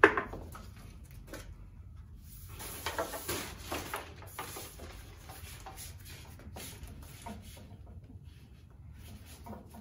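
Handling noise from carpentry work with tools and lumber: one sharp knock at the start, then scattered light clicks and knocks with rustling, busiest around three to four and a half seconds in.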